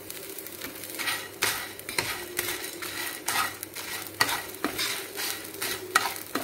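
Wooden spatula stirring dried red chillies, black peppercorns and salt in a dry non-stick frying pan: irregular scraping strokes, about two a second, starting about a second in. The spices are being dry-roasted without oil.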